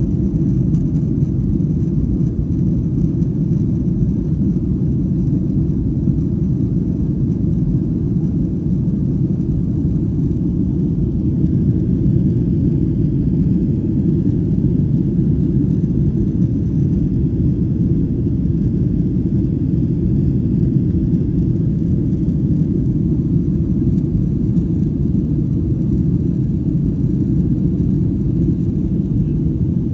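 Steady low rumble of an airliner's cabin in flight: engine and airflow noise heard from inside the passenger cabin, unchanging throughout.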